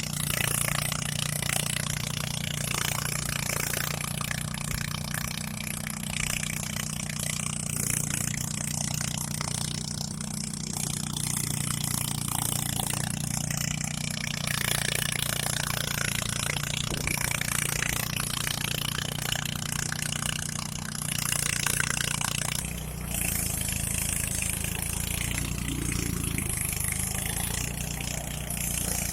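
Engine-driven rice thresher running steadily: a constant engine hum with a noisy rushing haze over it. The low hum shifts slightly about 23 seconds in.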